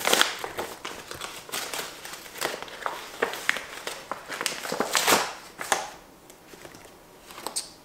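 Brown kraft-paper mailer bag being opened and handled, the paper rustling and crinkling in a run of crackles, loudest at the start and again about five seconds in, quieter near the end.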